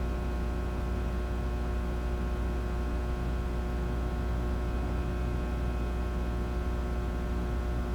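Aging fluorescent light fixture buzzing: a steady electrical hum with a strong deep drone and a stack of fainter higher overtones, over a light hiss.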